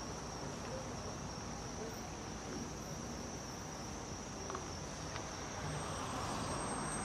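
Car driving along a city road: steady road and engine noise with a constant high-pitched whine over it.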